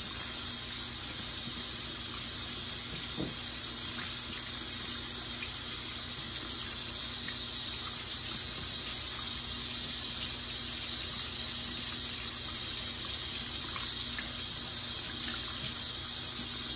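Bathroom tap running in a steady stream into the sink, the water splashing over hands and a badger shaving brush as it is rinsed out.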